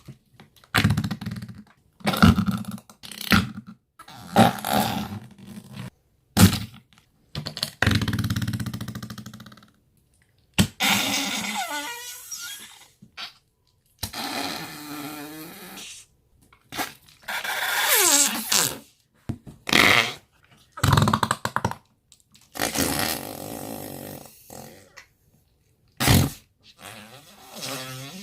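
Slime squeezed and pressed in the hand, making a string of short, wet, fart-like squelches. Some have a wobbling pitch, and each burst cuts off suddenly into silence before the next.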